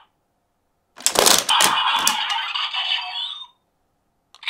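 Electronic sound effect from a Bandai DX Revice Driver toy's speaker: about a second in, a few sharp crashes over a crackling hiss that fades out a couple of seconds later. This is the closing burst of the Barid Rex Genome scanning finisher effect.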